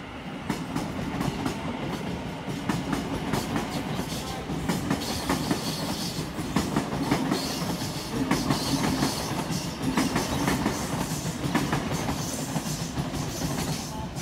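Sydney Trains double-deck electric passenger train passing close by: a steady rumble of wheels on rail with repeated clicks as the wheels run over rail joints.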